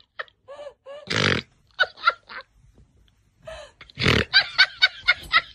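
People laughing hard in short, breathless bursts, with two louder, rougher gasps about a second in and again about four seconds in.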